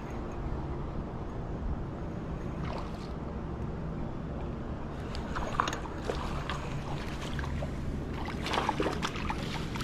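Creek water running steadily, with a few short splashes about halfway through and again near the end while a small smallmouth bass is being played in.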